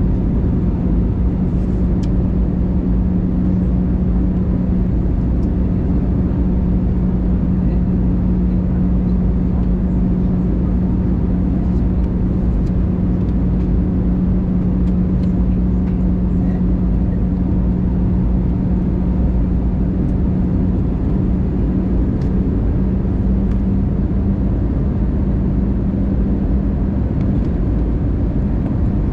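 Airbus A320 cabin noise on descent, heard by a window over the wing: a steady rumble of the engines and the air rushing past, with a steady hum. The hum rises slightly in pitch about two-thirds of the way through.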